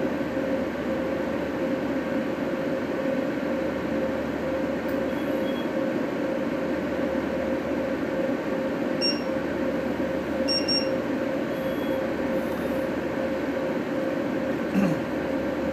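Steady mechanical hum with one constant mid-pitched tone, like a fan or blower motor running. A few faint short high beeps come about nine and ten and a half seconds in, and a single light knock near the end.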